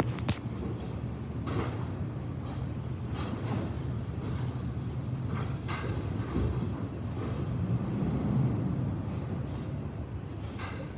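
Garbage truck engine running steadily, with scattered clunks from the truck and a rise and fall in the engine note about eight seconds in. A faint high whine comes in near the end.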